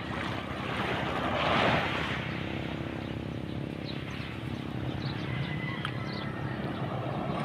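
Boat engine running steadily under a wash of water and wind noise, which swells briefly about one and a half seconds in.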